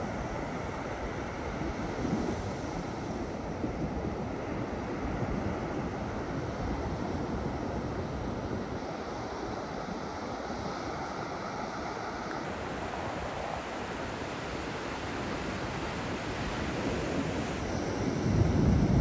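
Steady wash of ocean surf with wind on the microphone. A louder low rumble swells near the end.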